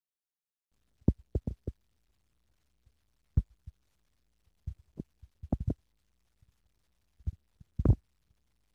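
Irregular soft low thuds and knocks, some in quick little clusters, with a slightly longer one near the end: young Angora rabbits shifting and bumping about in the plastic tray of a small wire cage.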